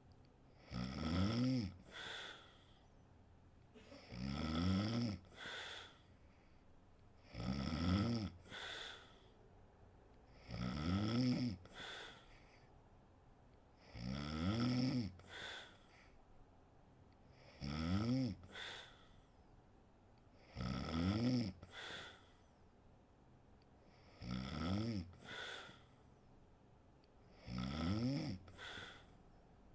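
A sleeping woman snoring: each breath in gives a loud snore of about a second, followed by a shorter, quieter snort on the way out. The pattern repeats evenly, about every three and a half seconds, nine times.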